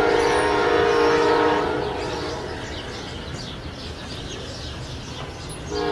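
Multi-chime locomotive horn on a departing Amtrak passenger train, one blast of about two seconds and another starting near the end, over the low rumble of the train pulling away.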